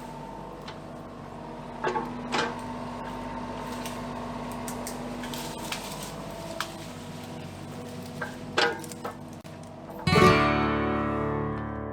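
Acoustic guitar music, with a loud strummed chord about ten seconds in that rings on. Before the chord there is a faint steady hum with a few sharp knocks.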